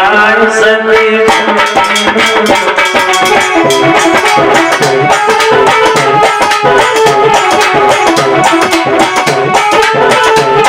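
Instrumental interlude of an Indian folk song: a fast, steady beat on hand drums and shaker-type percussion under a sustained melody line.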